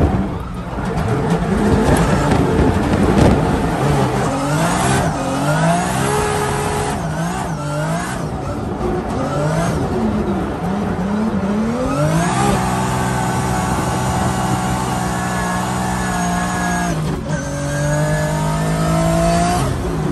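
Nissan Silvia S15 drift car's engine heard from inside the cabin, revving up and down in quick swings, then held high for several seconds with a brief dip near the end, over tyres squealing as the car drifts.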